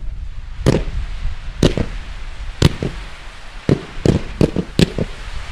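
Display fireworks going off: sharp bangs about once a second, then a quick cluster of them about four seconds in, over a hiss that builds.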